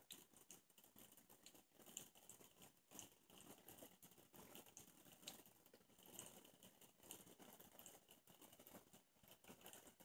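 Faint, irregular pattering and fizzing of water churned by a small ultrasonic mist maker (LED fogger) running in a bowl.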